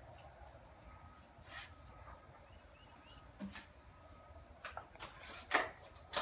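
Steady high-pitched chorus of crickets, with a few scattered light clicks and taps.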